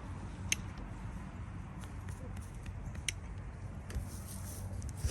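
Hoof trimming shears snipping a goat's hoof: a few short, sharp clicks, the clearest about half a second in and again about three seconds in, over a low steady rumble.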